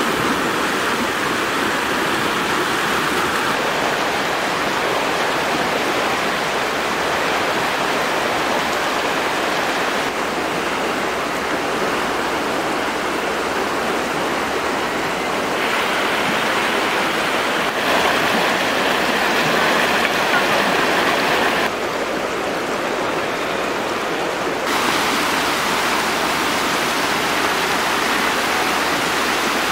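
Rushing water of a muddy river swollen by flood after days of rain, a steady loud rush. Its level and tone change abruptly several times.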